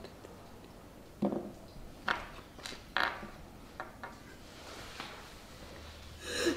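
A woman crying quietly: a few short sobbing breaths and sniffs about a second apart, with a louder sob near the end.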